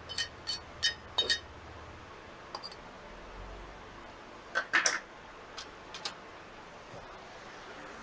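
Sharp, light metallic clicks and clinks of small parts and tools being handled at the workbench. There is a quick run of about five in the first second and a half, a louder cluster about halfway through, and two more shortly after.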